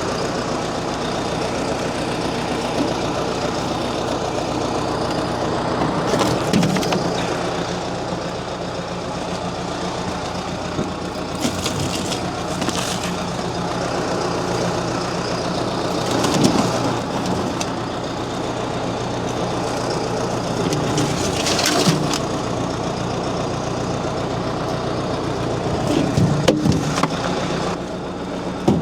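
John Deere 6115D tractor's diesel engine running steadily, with a few brief louder rattling noises every few seconds.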